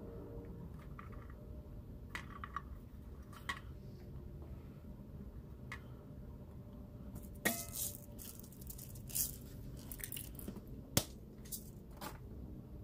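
Faint scattered clicks and soft taps as sliced onion, ginger, garlic and peppercorns are dropped by hand onto raw fish in a nonstick pot, with sharper clicks about seven and a half and eleven seconds in, over a low steady hum.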